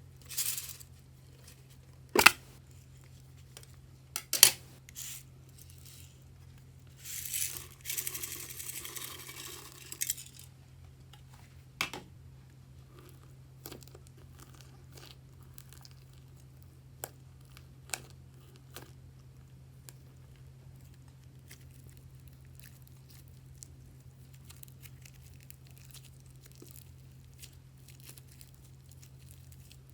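Butter slime being squished and stretched by hand, making sharp sticky pops early on and a longer crackling stretch about seven seconds in, then soft scattered clicks.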